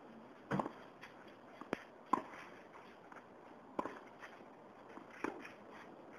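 Tennis rally: a tennis ball hit back and forth with rackets and bouncing on the court, five sharp pocks about one to one and a half seconds apart.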